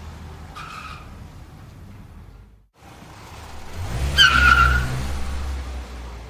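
Car sound effect: a steady low engine rumble with a short tyre squeal near the start. About four seconds in the rumble swells under a longer, louder tyre squeal, like a skid.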